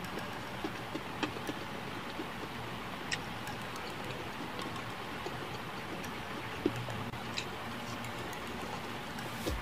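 Close-miked chewing of crispy fried chicken, with many small wet mouth clicks and lip smacks scattered over a steady hiss.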